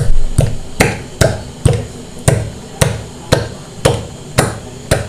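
A hand smacking the base of an upturned ketchup bottle over and over, about two sharp knocks a second, to get the ketchup to come out.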